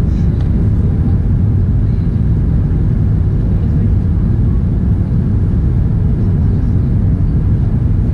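Steady cabin noise of an Airbus A380 climbing after takeoff, heard from a window seat: an even, low rumble of the four jet engines and the airflow along the fuselage.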